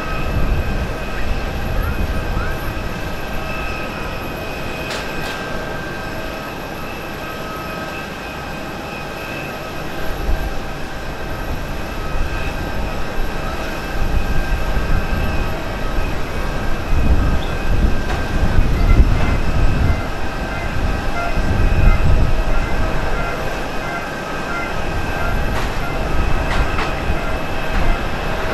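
Jet engines of a Boeing 777-300ER (GE90-115B turbofans) approaching and landing: a steady high engine whine over a deep rumble that grows louder and gustier about ten seconds in.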